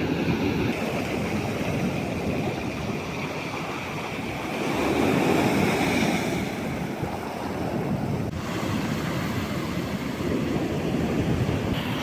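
Black Sea surf: waves breaking and washing onto the beach in a steady rush, swelling louder for a couple of seconds about halfway.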